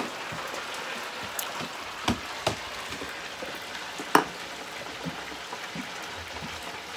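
Chicken wings frying in hot oil: a steady crackling sizzle, with a few sharp clicks or knocks about two, two and a half and four seconds in.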